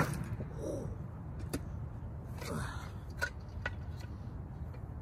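A few light knocks and clicks as a hooked log-rolling tool is handled against a large log, over a low steady rumble.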